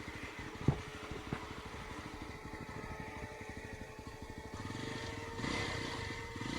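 Motorcycle engine running at low revs, with a single sharp knock about a second in; the revs and loudness pick up near the end.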